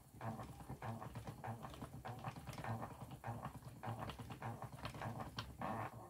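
Wooden treadle spinning wheel turning, with a faint rhythmic creak and click repeating about twice a second.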